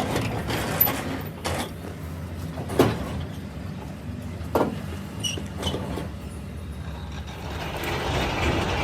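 Workshop machinery running with a steady low hum, with several short sharp knocks and a hiss building near the end.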